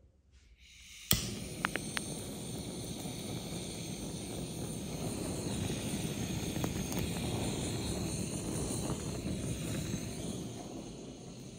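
Butane blowtorch on a gas canister lit with a sharp click about a second in, then a steady hissing flame singeing a raw whole chicken; the hiss tapers off near the end.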